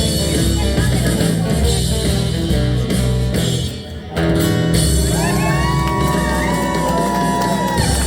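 Live rock band playing the closing bars of a song, with guitar. The sound drops briefly about four seconds in, then comes back with held notes that slide in pitch.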